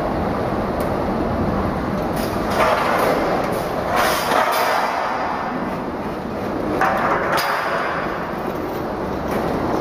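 Stainless steel tube bagging machine running, a steady mechanical noise with three louder rushes of noise about two and a half, four and seven seconds in.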